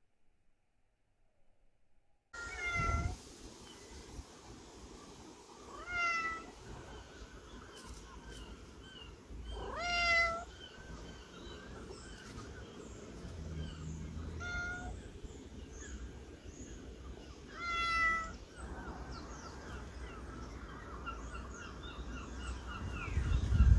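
Domestic cat meowing repeatedly at a closed door to be let in: about five separate meows a few seconds apart, one rising in pitch, after a short silence. A louder low noise starts just before the end.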